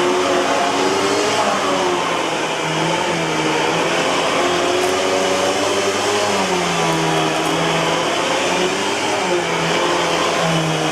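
Eureka Boss 6833B canister vacuum cleaner running with a steady whine and rush of air, its motor pitch wavering slightly up and down.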